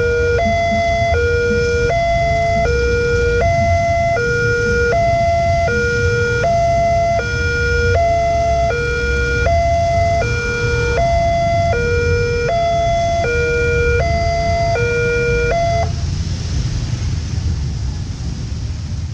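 Railroad level-crossing warning siren on a pole-mounted loudspeaker, sounding an alternating two-tone hi-lo wail with about one high-low pair every second and a half. It cuts off about sixteen seconds in. Under it runs a steady low rumble of motorbike engines crowding across the tracks.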